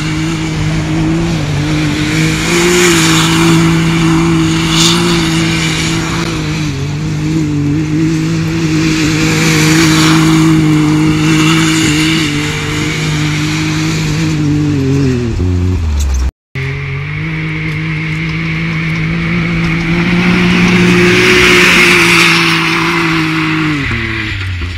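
A Can-Am Maverick side-by-side's engine is held at high revs while its spinning tyres throw loose sand, making a rushing hiss that swells and fades. The revs fall away about two-thirds of the way through, then again near the end.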